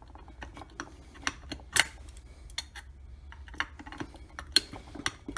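Light metallic clicks and clinks from a snowmobile primary clutch being handled as a weight pin is worked loose. The sharpest clicks come near two seconds and about four and a half seconds in.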